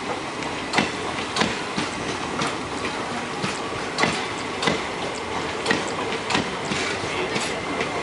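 Passenger train rolling past, its wheels clicking over the rail joints in an uneven clickety-clack about once or twice a second over a steady rumble.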